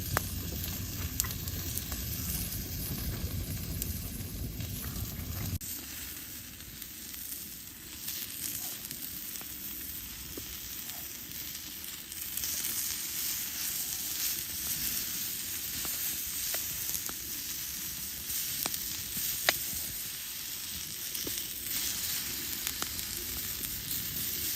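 Log fire burning in a homemade Swedish-torch log stove, a steady hiss and sizzle with scattered sharp crackles and pops. A low rumble underneath stops abruptly about five and a half seconds in.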